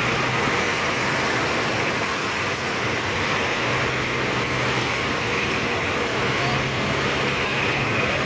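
A car driving along a city road, heard from inside: steady engine drone and tyre-and-road noise with a low hum, with no distinct events.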